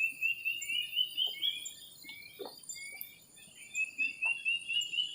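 Rapid bird chirping: short notes at about five a second, in two runs with a pause in the middle, over a steady high drone of insects.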